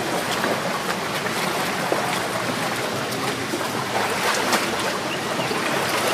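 Steady rush of water from the Kaveri river at Hogenakkal Falls, with a few short sharper splashes about four seconds in.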